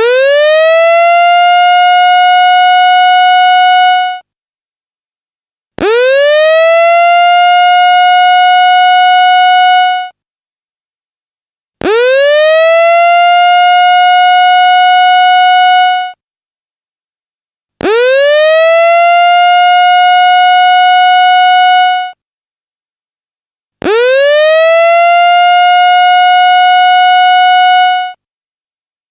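Electronic alarm siren used as a school fire-drill alarm: a loud tone that swoops up quickly to a steady high note, holds it for about four seconds, then cuts off sharply. It repeats five times, with about a second and a half of silence between wails.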